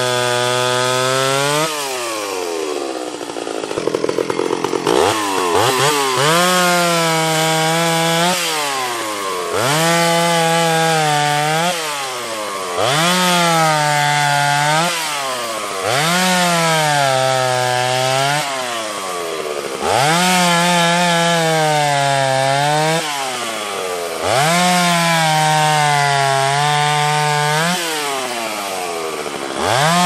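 Ported Stihl 031 AV two-stroke chainsaw bucking a log into rounds. About every three to four seconds the engine revs up and runs flat out through a cut, its pitch dipping under load, then drops back between cuts.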